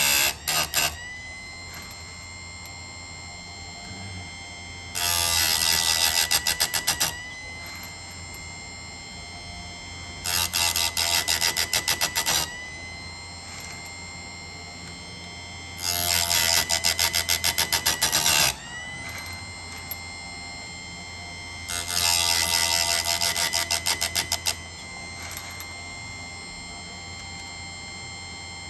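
Electric chainsaw chain grinder: the motor's steady whine is broken four times, about every five to six seconds, by a harsh two-second grind as the wheel is lowered onto alternate cutter teeth. The whine sags under each cut and rises back in pitch once the wheel lifts.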